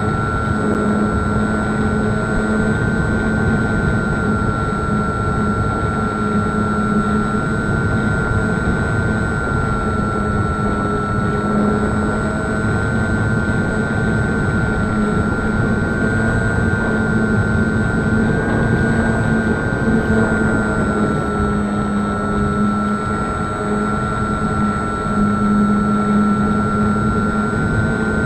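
Radio-controlled model Cessna 152's motor and propeller running steadily in flight: a constant high whine that wavers slightly in pitch, with a lower hum and rushing noise beneath.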